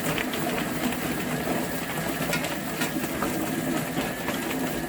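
Chicken plucker running: its motor hums steadily while a scalded bird tumbles inside and water is sprayed into it, with scattered light knocks.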